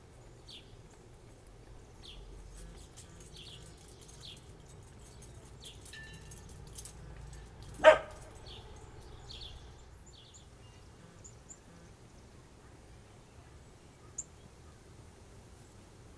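Scattered short, high bird chirps, with a single loud dog bark about eight seconds in.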